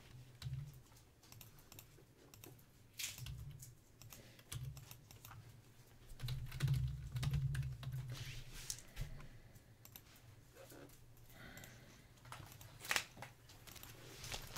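Computer keyboard being typed on in scattered, irregular key clicks, with a few louder knocks among them.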